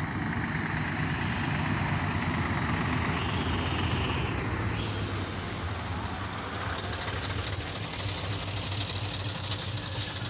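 Heavy trucks' diesel engines running as the trucks roll slowly past one after another, a steady low rumble with tyre and road noise. Short hissing bursts, typical of air brakes, come about eight seconds in and again near the end.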